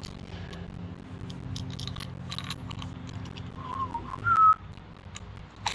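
A person whistling a few short notes, the loudest about four seconds in, over a steady low hum, with small clicks and taps from screws and plastic parts being handled during assembly.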